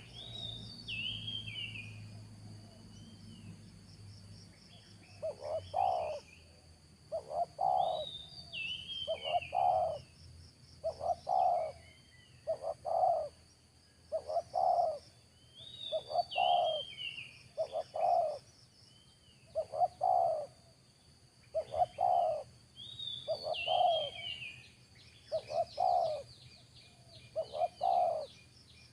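Spotted dove (terkukur) cooing, its short phrases repeated about once every second and a half from about six seconds in. Smaller birds chirp in falling notes over it, with a steady insect whine behind.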